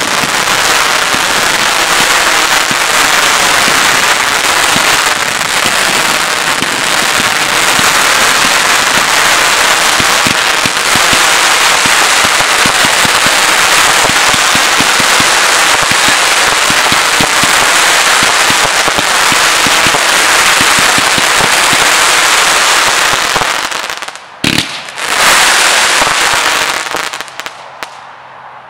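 Celtic Fireworks 'Slow Then Go' 60-shot low-noise fanned cake firing: a dense, unbroken crackle from its crackling-tail shots and crosette breaks. It drops away about 24 seconds in, gives one last short burst of crackle, then fades out.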